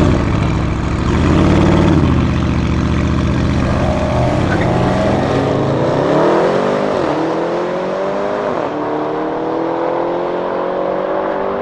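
Tuned Audi RS Q8's twin-turbo V8 revving briefly, then accelerating hard: the pitch climbs and drops sharply at two upshifts.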